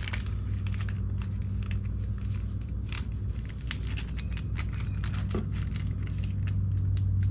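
Scattered small clicks and crinkles as an oil-sample bottle is wrapped in absorbent pad and fitted into a plastic mailing tube, over a steady low electrical hum.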